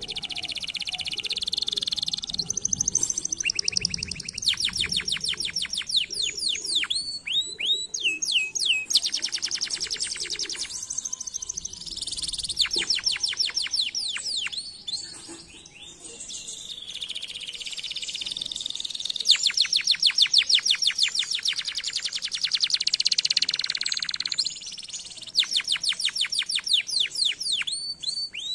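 Domestic canary singing a long, continuous song of rapid rolls: fast runs of repeated down-slurred notes, many to the second, alternating with buzzier trilled passages. There are short breaks about fifteen seconds in and again near the end.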